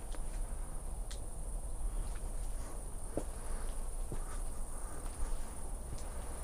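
Insects trilling steadily and high-pitched in summer vegetation, with a few light footstep taps on paving.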